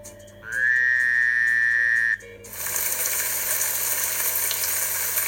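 A steady, high whistle-like tone that holds for about two seconds, followed from about halfway in by a loud, even hiss.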